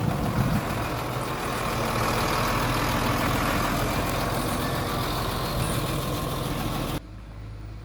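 Engine of a heavy machine running steadily. About seven seconds in it drops away suddenly, leaving a quieter engine hum.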